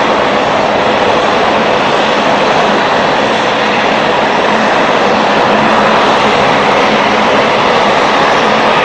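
Engines of a twin-engine Boeing 777 jet airliner running at high thrust during the takeoff roll, making a loud, steady rushing noise.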